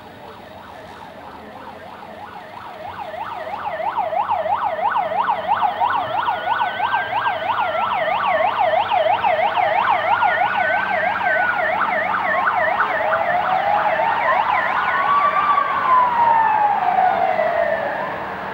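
Several sirens of a motorcade's escort vehicles sounding together as they pass. A fast yelp sweeps about four times a second, with slower rising-and-falling wails over it, and it all swells about three seconds in. Near the end the yelp stops, and a last long wail rises and falls away.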